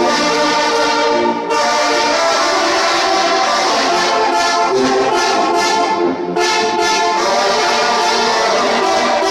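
Oaxacan brass band playing loud, sustained chords on trumpets, trombones, baritone horns and a sousaphone, with brief breaks between phrases about a second and a half in and about six seconds in.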